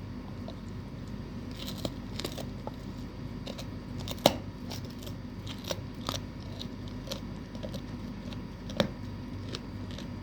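Doberman crunching and gnawing a cow bone: irregular sharp cracks and crunches, with two loud cracks, one about four seconds in and one near nine seconds.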